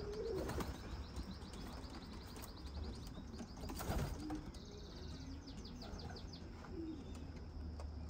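Racing pigeons cooing softly in their loft, with a brief sharp knock or wing flutter about four seconds in. A faint, high, rapid ticking trill comes and goes in the background.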